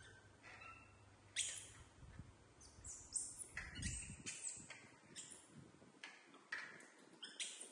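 Young macaque monkeys giving short, high-pitched squeaks and chirps, a dozen or so scattered through, with a brief low bump of handling noise around the middle.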